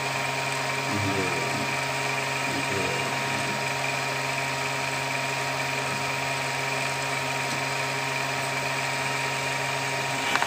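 Steady whir of a small electric motor, with a constant low hum and a thin high tone over it; a sharp click near the end.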